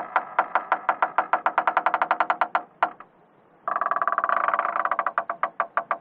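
Slow door hinge creak: a run of separate ticks that speeds up over about two and a half seconds, then after a short pause a denser creak about three and a half seconds in that slows back into separate ticks near the end.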